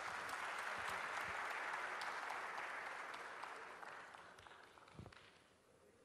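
An audience applauding, fading out over the last few seconds.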